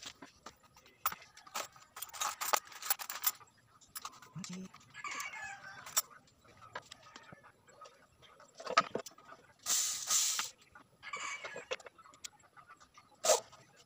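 Chickens clucking and a rooster crowing in pitched, wavering calls, among scattered clicks and knocks from handling a corded power drill and plywood panels. A short rushing noise about ten seconds in is the loudest sound.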